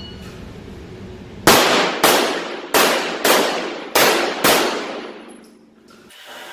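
Six 9mm pistol shots from a Glock 34, fired in three quick pairs, each pair about half a second apart: two shots on each target as the shooter transitions. Each shot rings off in the reverberant indoor range.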